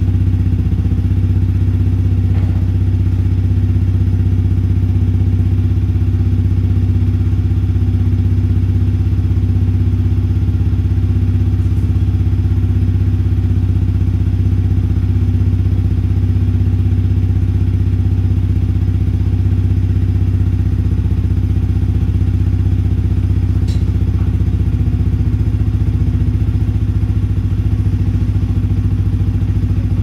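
Yamaha WR155R's single-cylinder four-stroke engine running steadily at idle through an aftermarket Norifumi Rocket 4 exhaust, loud and even in pitch with no revving.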